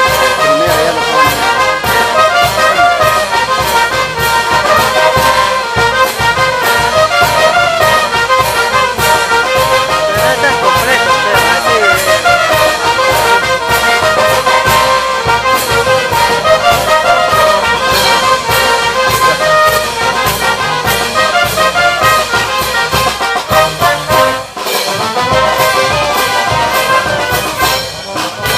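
Andean brass band playing: trumpets, trombones, saxophones and sousaphones over a steady bass drum and snare drum beat, with a brief drop in the drumming about three-quarters through.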